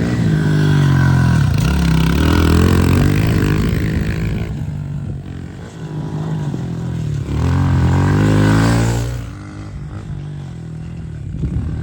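Honda CRF110 pit bike's small single-cylinder four-stroke engine revving hard under throttle. Its pitch drops and climbs back up twice, then it falls to a lower, quieter run near the end.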